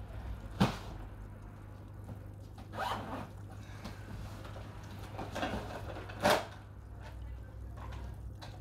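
Fishing tackle being rummaged through for a sinker, over a low steady hum. There is a sharp click about half a second in, some rustling, and a short zip-like scrape about six seconds in.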